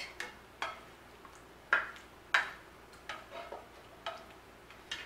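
A spoon scraping and knocking against the inside of an enamelled pan as the last of a thick pie filling is scooped out: a string of irregular clicks and taps, the two loudest a little under and a little over two seconds in.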